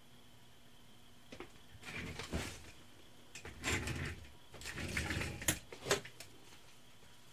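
A person moving about close by: several clusters of rustling and shuffling with sharp clicks and knocks over about five seconds. Underneath is a steady faint hum with a thin high tone.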